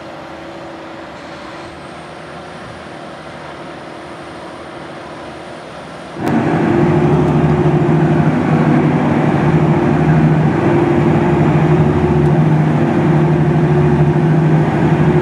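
Big four-wheel-drive tractor's diesel engine running steadily under load, heard loud and close as it pulls an ejector scraper that is loading dirt. A quieter steady hum gives way abruptly about six seconds in to this loud engine drone.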